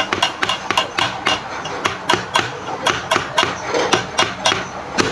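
Background music: a fast percussive beat of sharp claps or taps, about four hits a second.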